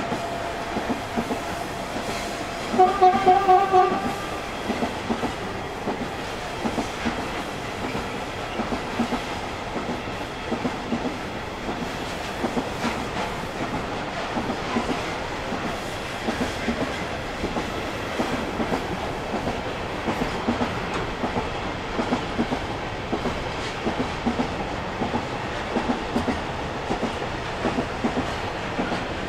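Long container freight train rolling past, its wagon wheels clicking over the rail joints in a steady rhythm. About three seconds in, a train horn gives a short, pulsing blast.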